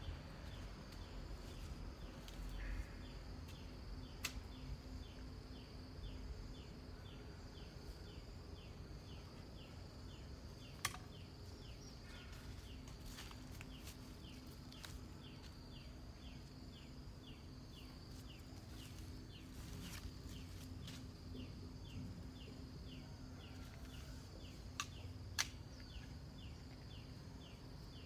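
Faint rural garden ambience: a short falling chirp repeated evenly about twice a second over a steady high insect drone, with a few sharp clicks.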